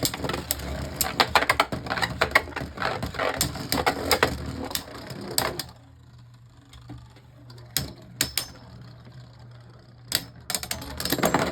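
Beyblade Burst spinning tops clattering rapidly against each other and the plastic stadium for about five and a half seconds, ending in a burst finish. After that come a few scattered clicks.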